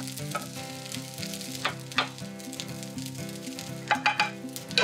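Fried rice still sizzling in a hot nonstick frying pan as a wooden rice paddle scrapes it out onto a plate. The paddle makes a few sharp scrapes and taps against the pan, several of them close together near the end.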